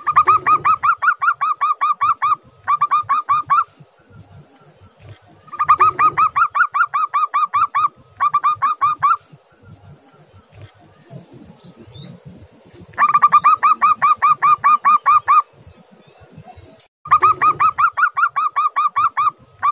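Zebra dove (perkutut) calling: four runs of rapid staccato cooing notes, about ten a second, each run lasting a couple of seconds, the first two each followed by a short extra run.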